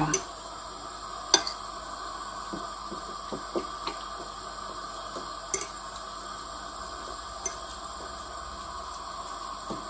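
A fork pressing and stirring eggplant in beaten egg on a plate, with a few light clicks of the fork against the plate over a faint steady background.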